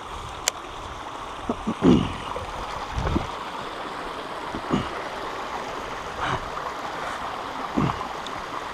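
Creek water running steadily, with short low thumps every second or two.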